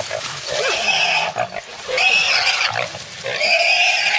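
A small feral boar squealing loudly while caught and held by hunting dogs: three long squeals of about a second each, close together.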